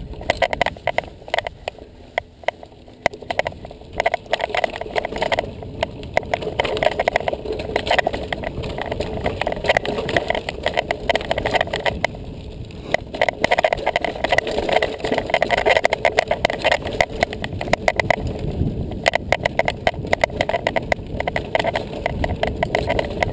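Mountain bike rolling fast along a dirt forest trail: a steady rush of tyres on the ground, with frequent sharp clicks and rattles as the bike jolts over roots and bumps.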